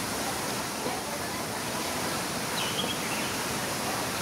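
Steady rush of running water in a garden pond, with one short, faint high chirp of a bird about two and a half seconds in.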